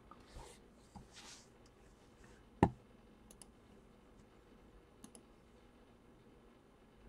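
A few soft rustles, then one sharp knock about two and a half seconds in, followed by a couple of faint clicks of a computer mouse.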